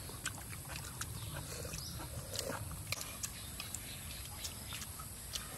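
Metal spoons clinking and tapping against plates and bowls as people eat, a scattering of light, irregular clicks over a low background rumble.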